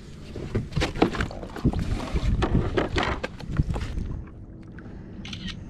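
Wind rumbling on the microphone, with a run of knocks and rattles from handling on a plastic sit-on-top fishing kayak. About four seconds in the knocking stops and it drops to a quieter, duller hiss.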